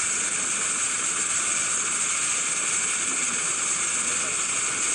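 Steady rushing hiss of water and wind from a boat under way, its wake churning alongside.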